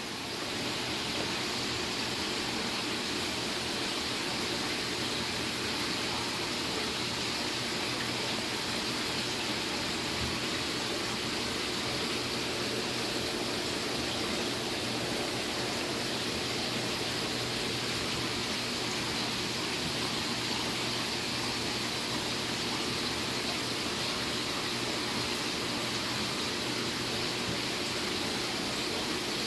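Aquarium filtration running: a steady rush of circulating water with a faint low pump hum.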